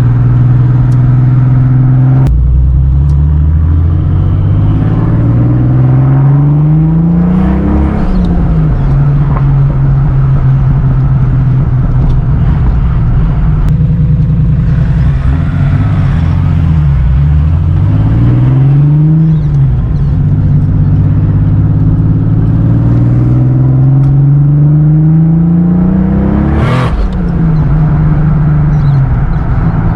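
Holden VL Calais Turbo's 3.0-litre RB30ET straight-six, fitted with a bigger Garrett turbo and running on low boost, accelerating hard: engine pitch climbs and then drops at each gear change, three times. Near the end, at the top of the last climb, a brief loud rushing burst cuts through.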